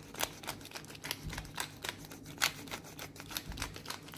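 Wooden pepper mill being twisted to grind black peppercorns, giving an irregular run of dry clicks and crackles, several a second.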